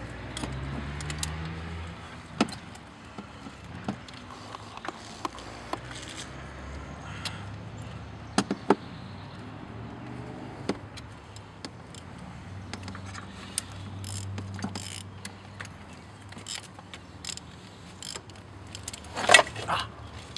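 Metal hand tools and parts clinking and clicking irregularly as they are handled, with a louder clatter of metal near the end.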